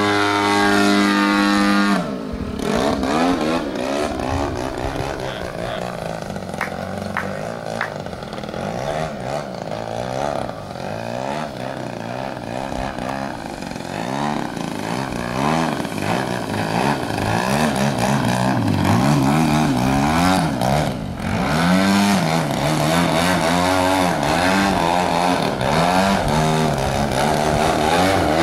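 30%-scale Extra radio-controlled aerobatic model plane flying, its engine and propeller droning. The note is loud and steady for the first two seconds, then drops suddenly and keeps rising and falling in pitch as the plane manoeuvres.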